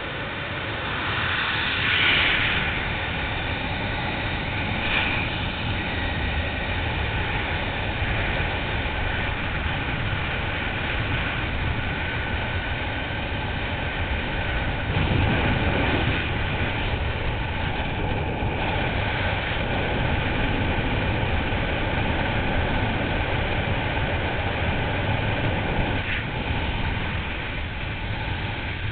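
Freefall wind rushing over a helmet-mounted camera's microphone: a steady, loud rush of air with a low rumble, swelling briefly about two seconds in and again around fifteen seconds in.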